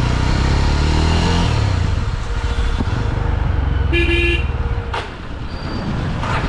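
Yezdi motorcycle's single-cylinder engine running on the ride, with a short vehicle horn toot about four seconds in.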